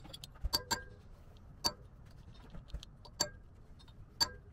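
Light, separate taps of a ball-peen hammer on a small cold chisel wedged under the steel dust cover of a front wheel hub, each a sharp metallic click with a brief ring, irregularly spaced. This is the chisel being driven a little at a time around the cover's edge to open a gap for prying it off.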